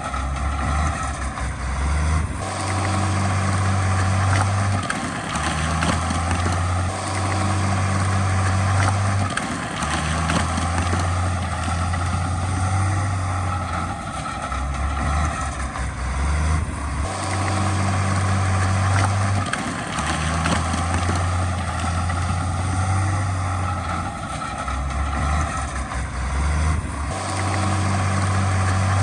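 Heavy diesel engine of earthmoving machinery running under load with a deep steady drone, the sound shifting abruptly several times.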